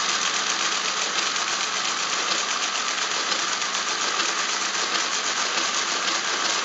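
Friden STW-10 electromechanical calculator running an automatic long multiplication: its motor-driven gear train and carriage cycling in a rapid, steady, even clatter. The clatter fades out right at the end as the calculation completes.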